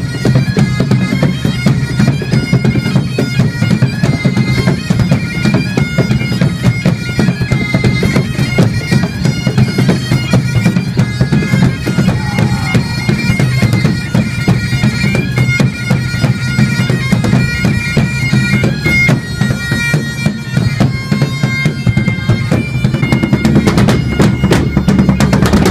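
Background music: bagpipes playing a tune over a steady drone.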